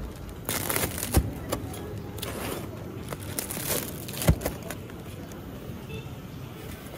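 A cleaver crunches down through a crisp, flaky pastry crust, crackling in several strokes. The blade knocks sharply on the cutting board twice, about a second in and again about four seconds in.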